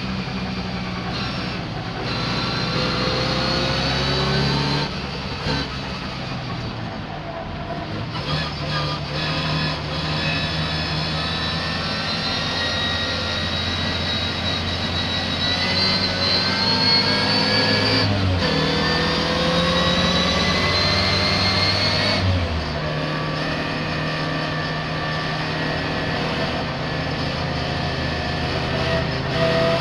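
Racing car engine under hard acceleration, its pitch climbing steadily and then dropping sharply at two upshifts about two-thirds of the way through, with an easing off and slowing near the start; the car is running with a misfire.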